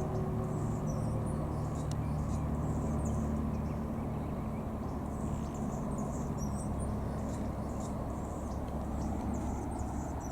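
Steady low rumble of distant road traffic, with faint, short, high chirps of small birds scattered through it.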